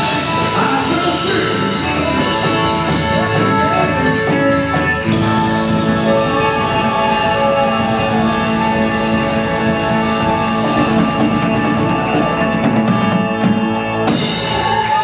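A live rock and roll band, drum kit and guitar, playing with a steady drum beat. About five seconds in the beat stops and the band holds a long sustained chord.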